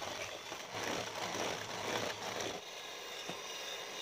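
Electric hand mixer running, a steady motor whine as its beaters whisk eggs and sugar in a plastic bowl until fluffy. The churning of the beaters is louder for the first two and a half seconds, then settles to a steadier, quieter run.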